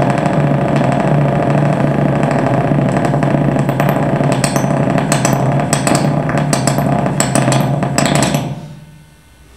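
Live experimental noise music from an amplified boombox: a loud, dense, distorted drone with a steady low hum, joined by crackling clicks in the second half. It drops away sharply to a quiet hum about eight and a half seconds in.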